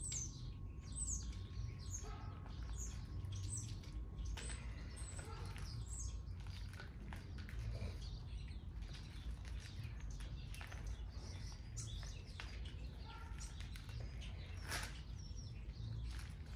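Small birds chirping: short, high chirps that fall in pitch, coming every half second or so at first and more sparsely after about six seconds, over a low steady rumble.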